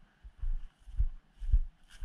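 Footsteps of a person walking at a steady pace, about two steps a second, each step a dull thud with a light crunch from the ground underfoot.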